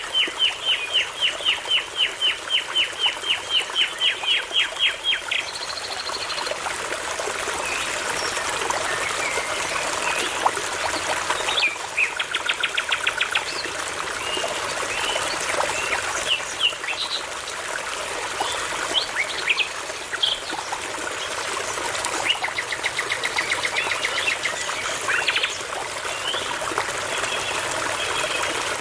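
Songbirds singing over a babbling brook: a fast run of repeated high notes, about four a second, for the first five seconds, then assorted chirps and short trills over the steady trickle of water.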